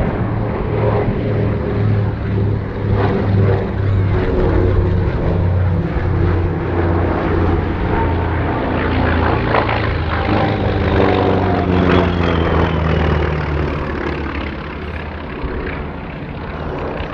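Consolidated PBY-5A Catalina's twin Pratt & Whitney R-1830 Twin Wasp radial engines droning on a low flypast, the pitch dropping as the flying boat passes, about ten seconds in, then easing slightly as it moves away.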